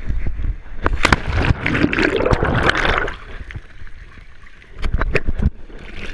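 Water splashing and sloshing against a waterproof action camera held at the surface. There is a burst of splashing from about a second in, lasting around two seconds, then a quieter stretch, then a few sharp knocks near the end.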